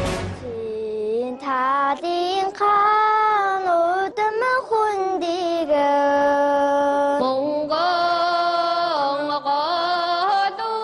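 Children singing a slow melodic song together in unison, with long held notes and no instruments heard.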